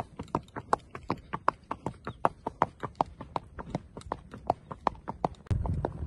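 Hoofbeats of a ridden horse on a packed dirt track, a fast, even clip-clop of about five or six hoof strikes a second. A low rumble joins in near the end.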